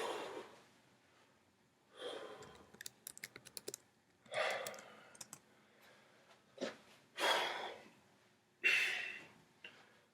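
A man's forceful, sharp exhalations, a second or two apart, as he strains to bend a nail or bolt by hand. A quick run of small clicks comes about three seconds in.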